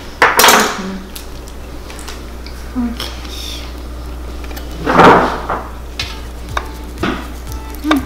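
Kitchen prep with a knife on a cutting board while avocado is sliced and handled: light knocks and clicks, with two louder scraping rushes, one about half a second in and one about five seconds in.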